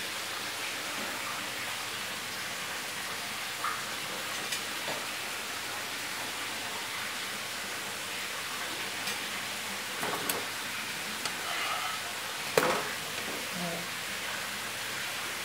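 Pancake batter frying in a buttered nonstick pan, a steady soft sizzle. A few sharp clicks of a spatula against the pan come around ten and twelve seconds in as the pancake is flipped, the one near twelve seconds the loudest.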